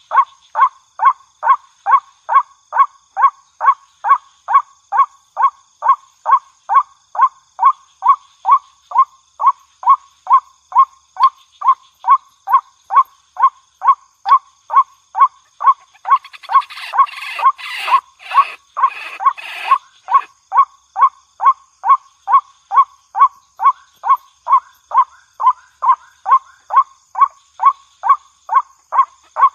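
Waterhen call: one short, slightly falling note repeated steadily about two and a half times a second, a looped call of the kind played to lure the bird in. About halfway through, a harsher, scratchy sound joins for a few seconds.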